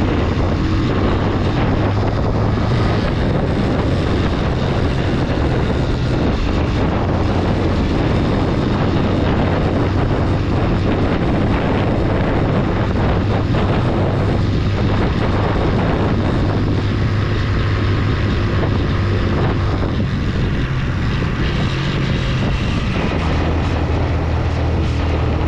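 Motorcycle engine running while riding, its note shifting up and down with the throttle, with wind noise on the microphone.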